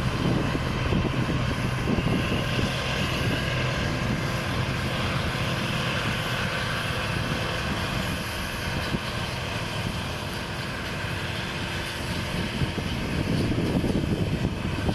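New Holland 8070 combine harvester's engine and threshing machinery running steadily as it cuts rice, a continuous mechanical drone with a low hum that gives way to a higher steady tone about halfway through.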